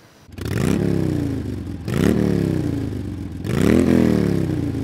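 An engine revved three times about a second and a half apart. Each rev climbs quickly in pitch and then falls away slowly.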